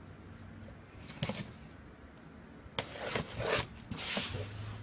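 Spyderco Manix 2 folding knife slicing through the tape on a cardboard box: a few short scratchy cuts, one faint about a second in and several stronger ones near the end.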